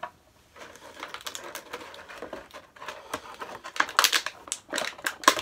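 Plastic packaging crinkling, with quick clicks and taps of small plastic action-figure parts being handled, getting busier and louder in the second half.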